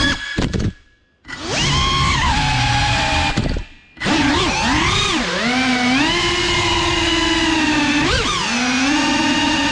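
CineLog35 cinewhoop's brushless motors and propellers whining, the pitch rising and falling with throttle. The whine cuts out twice, for about a second soon after the start, right as the drone brushes a wooden panel, and again briefly before spinning back up; a short sharp rise-and-fall blip comes near the end.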